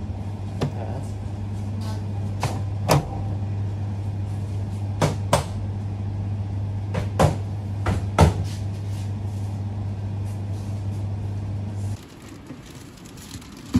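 Front-loading laundry machine: a steady low electrical hum, with several sharp clicks and clunks as its round glass door is handled. The hum stops about twelve seconds in.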